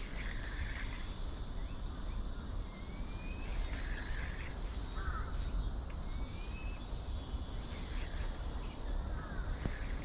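Pondside outdoor ambience: a bird gives a short rising call every few seconds over a steady high-pitched insect drone, with a low rumble underneath.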